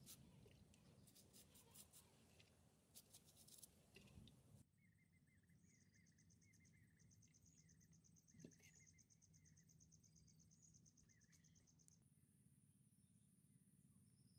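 Faint scratching strokes of a thin brush painting white lines onto a rough concrete pool floor for about the first four and a half seconds. Then faint outdoor ambience: repeated bird chirps and a rapid insect trill, replaced about twelve seconds in by a steady high insect drone.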